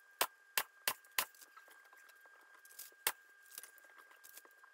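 Pneumatic staple gun firing staples through a convertible top into the rear top bow: four sharp shots in about a second, then one more about three seconds in.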